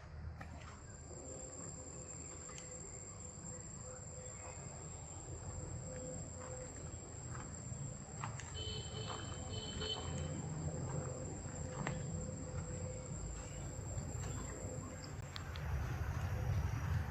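Insects droning: one steady, high-pitched whine that stops about two seconds before the end, over a low rumble and a few faint clicks.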